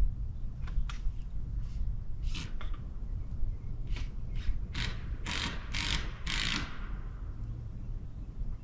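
A run of short scraping strokes, a few scattered at first, then longer, louder and closer together for a couple of seconds before they stop, over a low steady rumble.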